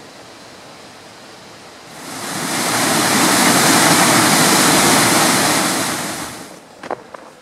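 Rushing water of a small mountain waterfall and stream, swelling in about two seconds in and fading out about six and a half seconds in, over a faint steady hiss. A couple of short knocks near the end.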